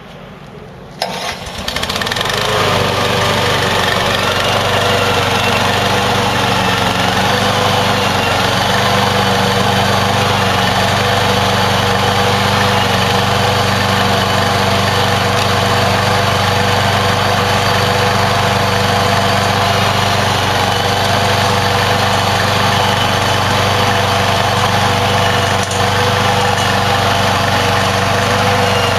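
Engine of a Hybrid GOAT 22T remote-control slope mower starting about a second in, rising briefly, then running steadily at an even speed.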